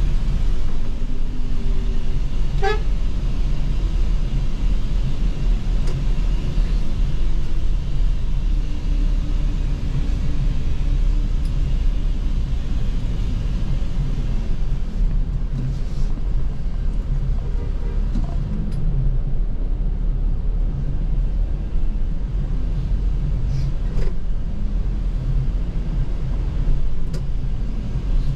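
Steady low engine and road rumble of a coach bus, heard from inside its cabin as it drives slowly. A few short horn toots sound now and then.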